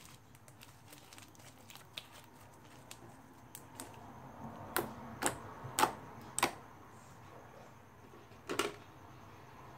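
Homemade glue slime being kneaded and stretched by hand, giving a run of small sticky clicks, then four sharp pops in quick succession about five to six and a half seconds in and one more near the end.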